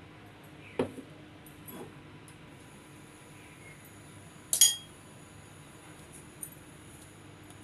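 Kitchenware being handled: a light knock about a second in, a softer one shortly after, and a sharp ringing clink of dishware near the middle, which is the loudest sound.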